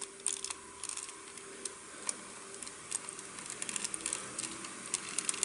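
Scattered small clicks and ticks of a Terraegis transforming robot figure's hard plastic parts being handled and pried apart at their joints.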